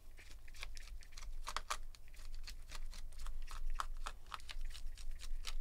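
Irregular small metal clicks and ticks, several a second, of a Torx T5 screwdriver working the trackpad screws in a MacBook Pro's aluminium bottom case, over a faint low hum.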